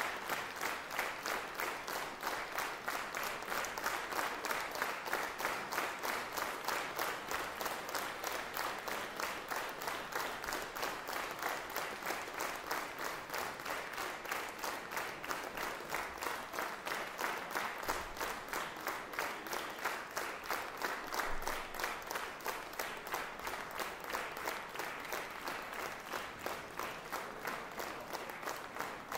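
Concert audience applauding steadily, the clapping falling into an even rhythm of about three claps a second.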